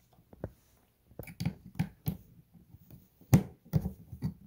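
Irregular clicks and light knocks of a small metal locking piece and plate being handled and slid into place against a folding kayak's polyethylene hull panels.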